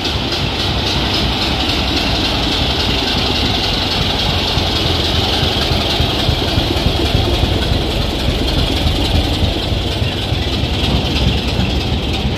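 Heritage diesel train running: a steady mix of engine and wheel-on-rail noise.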